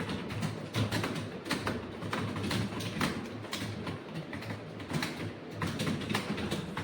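Computer keyboard typing: a rapid, irregular run of keystroke clicks over a low steady hum.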